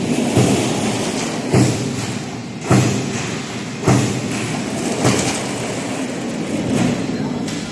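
Noise barrier panel roll forming machine running steadily, with a heavy thump about every second and a bit.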